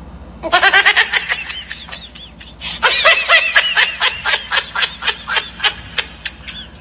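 High-pitched giggling laughter in quick runs of short pulses, with a short break about two seconds in.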